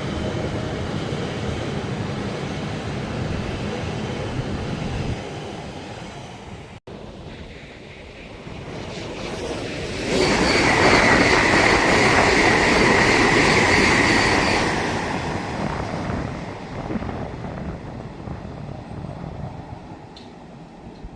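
E7 series Shinkansen train passing at speed: a loud rushing noise swells about ten seconds in with a steady high-pitched squeal over it for some five seconds, then fades away. The squeal is either wheel flange squeal or an abnormal noise from the train. A steady rushing noise comes before it, dying away about five seconds in.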